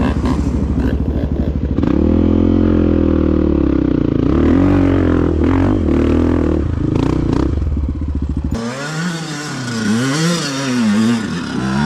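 Dirt bike engine running close by, revving up about two seconds in and holding at high revs. Near the end the sound changes abruptly to revs rising and falling in quick swells.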